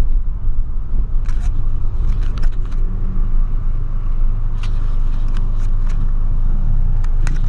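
Steady low rumble of a 2008 Volkswagen Polo 1.6 sedan's four-cylinder engine and tyres on a wet road, heard from inside the cabin while driving. A few short clicks and ticks come at irregular moments.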